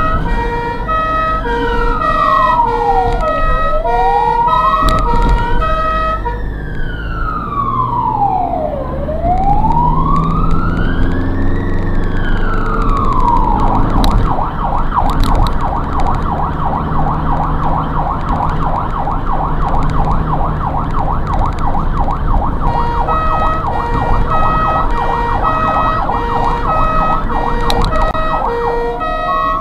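Ambulance siren heard loud from on board the vehicle: a stepped two-tone pattern over a slow rising-and-falling wail, then the wail alone, switching about halfway to a fast yelp, and back to the two-tone near the end. Engine and road noise run underneath.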